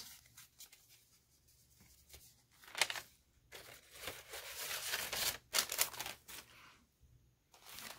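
Paper rustling and crinkling as cards and a brown paper bag package are handled, in several bursts after a quiet first two seconds, the longest in the middle.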